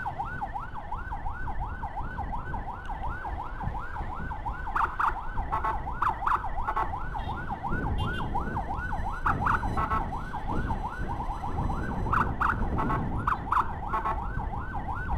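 Electronic siren of an ambulance escort motorcycle on its fast yelp setting: a rapid up-and-down wail, about three to four sweeps a second, with short louder bursts of a second tone several times. Engine and traffic rumble sit underneath.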